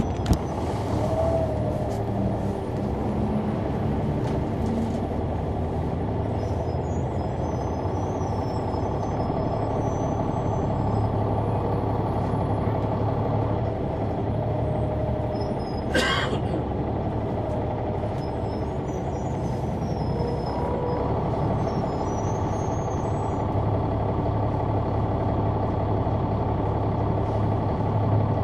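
Caterpillar C-9 ACERT diesel engine of a 2004 Neoplan AN459 articulated transit bus running steadily, heard from the rear seats above the engine. A single sharp sound cuts in about halfway through.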